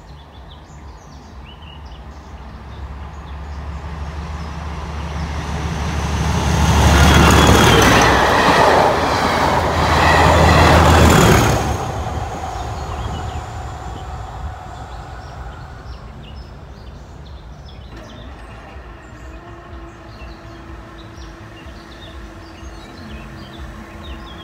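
A test train hauled by two Class 37 diesel locomotives passes over the crossing. The low drone of the locomotives' English Electric V12 engines builds for several seconds, is loudest for about five seconds as the train goes by with wheel clatter, drops sharply and then dies away.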